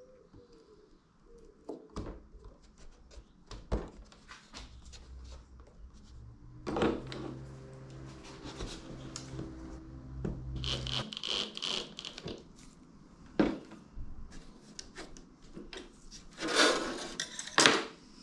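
Wooden panels being handled and worked: rubbing and scraping, with scattered knocks and a low hum in the first half.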